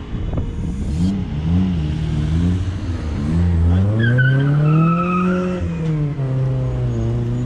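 A car engine accelerating on the road. Its note wavers at first, rises over a second or so, holds, then drops and settles to a steady lower drone.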